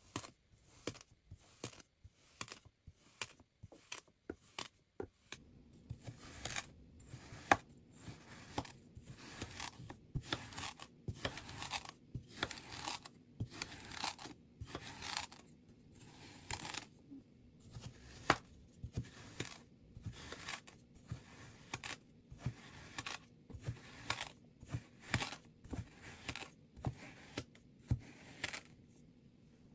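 Metal kitchen knife slicing down through kinetic sand, a short crunchy cut repeated again and again, at first about two cuts a second, later in quicker runs of strokes.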